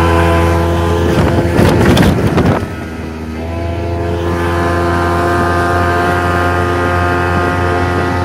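Mercury 85 hp outboard motor running at speed, pushing a speedboat. About a second in, a loud rush of wind and water noise briefly drowns the motor. The motor note then dips and settles back to a steady run.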